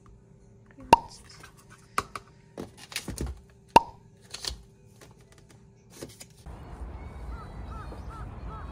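Plastic food packages and containers set down and handled on a stainless-steel counter: several sharp knocks and taps over a faint steady hum. About six and a half seconds in, this gives way to steady outdoor background noise with a short run of five bird calls.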